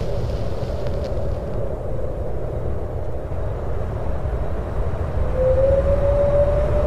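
A steady, low ambient rumble. About five seconds in, a single long held tone comes in over it and keeps sounding.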